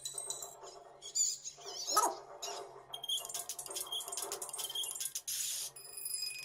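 A 3D ringtone sound effect of animal calls, dog-like, played from a ringtone app. It has a loud falling yelp about two seconds in, amid busy clicks and warbling high chirps.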